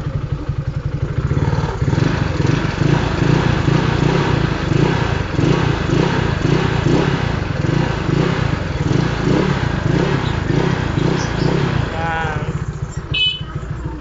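Yamaha Mio Fino scooter's single-cylinder four-stroke engine idling steadily, a little louder for about ten seconds in the middle.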